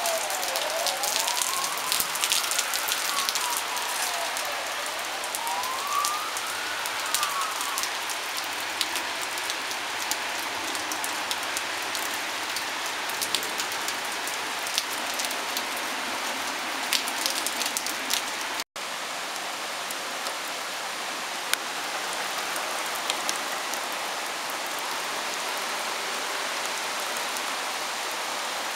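Torrential rain in a cloudburst, a steady dense hiss with close drops ticking sharply. For the first several seconds an emergency-vehicle siren wails, rising and falling about three times, then fades out.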